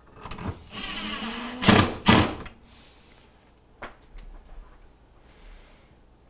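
Cordless drill driving a screw into a refrigerator's plastic back panel: the motor whine rises for about a second, then two sharp clacks as the screw goes home. A few light clicks follow.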